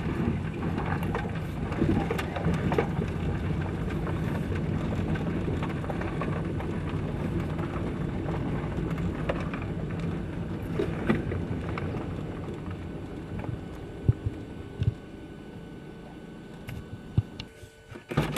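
Car engine running with tyres crunching and crackling over a gravel road, heard from inside the cabin. From about twelve seconds in it grows quieter, with a few sharp knocks near the end.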